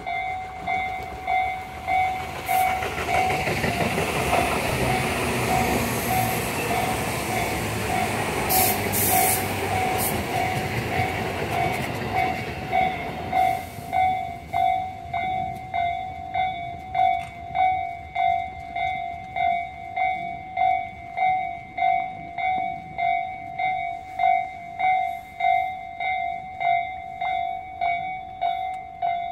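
Japanese level-crossing warning bell ringing in steady electronic pulses, about one and a half a second. Over the first half a local electric train runs across the crossing with a rumble and clatter of wheels on rail, with a brief high screech about nine seconds in. Then the rumble fades, leaving the crossing bell.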